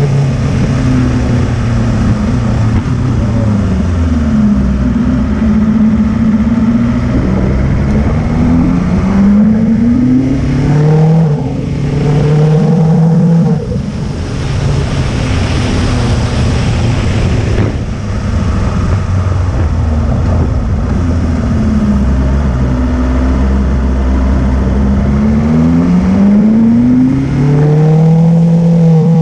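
Motorcycle engine climbing a steep road, its pitch rising several times as it accelerates and dropping back at each gear change.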